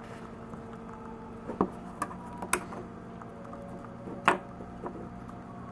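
Small 3D-printed plastic cube pieces clicking and tapping as they are handled and fitted together, with a sharper knock about four seconds in as the cube is set down on the wooden table. A steady hum runs underneath.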